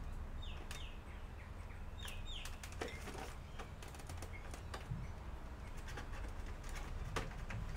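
Faint background birds chirping: two pairs of short falling chirps, over scattered sharp clicks and a steady low hum.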